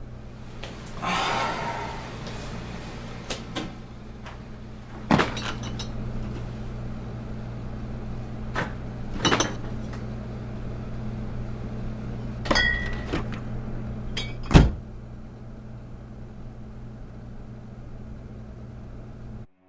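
Steady low hum of a SMEG refrigerator, with scattered clicks and knocks as its door is handled; the loudest is a sharp knock about three-quarters of the way through.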